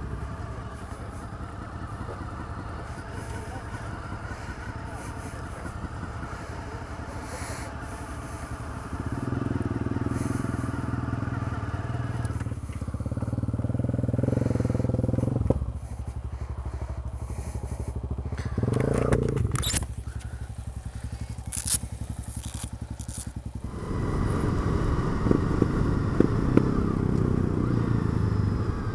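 1998 Honda VFR800's V4 engine running on the move, the revs rising and falling as the rider accelerates and eases off, pulling harder in several spells and loudest in the last few seconds.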